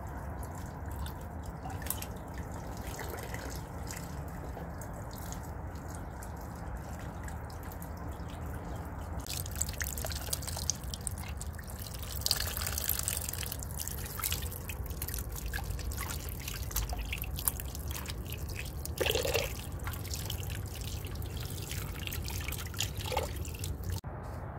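A thin stream of tap water trickles and splashes into a metal pot of water as tomatoes and green peppers are rinsed by hand, with steady dripping.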